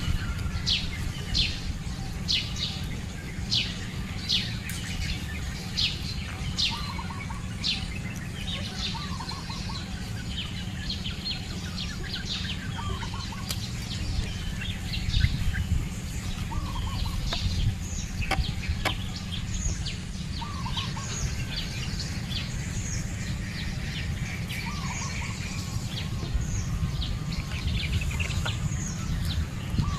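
Small birds chirping: quick, sharp, high calls repeated every half second to a second, busiest in the first several seconds, with fainter lower calls between. A steady low rumble runs underneath.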